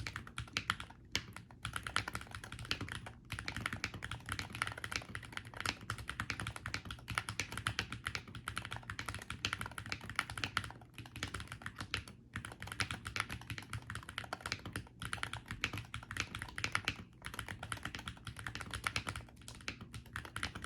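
Continuous fast typing on a stock Akko MOD68 aluminium-case, gasket-mounted Hall-effect magnetic keyboard with Akko Astroaim switches and Misty keycaps: a rapid stream of keystroke clacks, broken by a few brief pauses.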